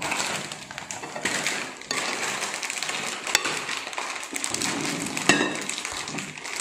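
Metal spoon scooping food out of a ceramic serving plate and clinking against the plates, over a continuous crackling noise with scattered small ticks.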